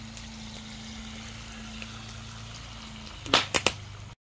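Chicken pieces deep-frying in hot oil, a steady sizzle. Three sharp knocks come close together a little over three seconds in.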